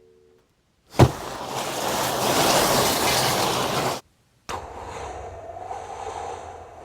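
Layered sound effects for a car scene played back: a sharp hit about a second in sets off a loud rushing noise that cuts off abruptly about three seconds later. After a short gap, a second, softer rushing noise with a steady hum begins.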